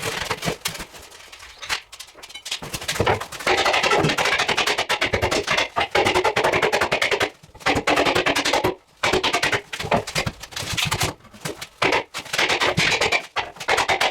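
Background music with drums and percussion.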